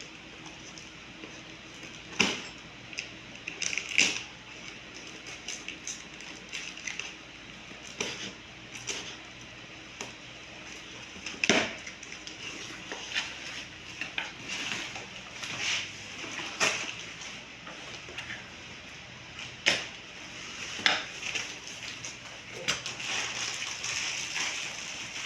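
Irregular clicks, taps and crinkles of a package and a plastic motorcycle engine guard being unboxed and handled, with a handful of louder knocks scattered through.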